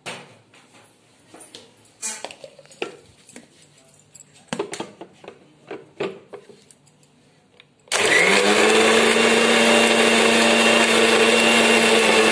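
Clicks and knocks as a steel mixer-grinder jar is handled and fitted onto its base. About eight seconds in, the electric mixer grinder starts suddenly and runs loud and steady, wet-grinding coconut, green chillies, fennel and cashews with water into a paste.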